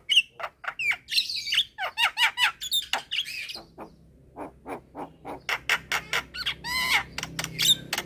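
Javan myna calling: a rapid, varied run of harsh squawks, clicks and sliding chirps, breaking off briefly about halfway before starting again.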